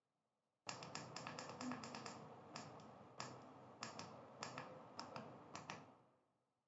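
About twenty quiet, sharp clicks of the small tactile push buttons on an i2C KC01 battery repair tool, pressed in quick irregular runs with a fingertip. They start under a second in and stop shortly before the end. The presses step through battery models and confirm with OK, which starts writing the battery's underlying data.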